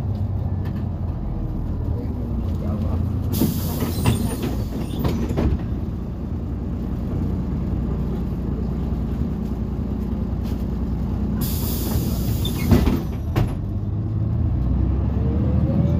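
A MAZ 203 city bus heard from its wheel arch while driving: the Mercedes OM906LA diesel and ZF 6HP502C automatic gearbox running steadily, with knocks and rattles from the running gear. Two short bursts of hiss come about three and a half and twelve seconds in, and a rising whine starts near the end.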